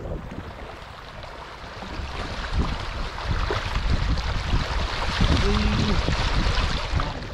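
Water sloshing and splashing, building up over a few seconds, with wind rumbling on the microphone. A short voice-like sound comes about five seconds in.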